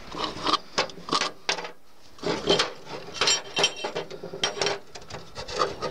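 Steel parts of a homemade crankshaft sprocket puller being taken apart: a series of irregular metallic clinks and knocks, with scraping as the threaded screw and pipe pieces rub against each other.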